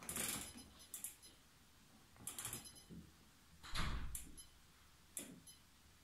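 Clicks and knocks from the programme selector dial on an Arçelik washing machine's control panel being turned to choose a wash programme: about half a dozen short, irregular clicks, with a louder, fuller knock about four seconds in.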